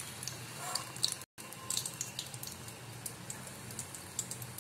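Hot frying oil in a kadhai crackling faintly with scattered small pops, the flame just switched off after frying, broken by a brief dropout about a second in.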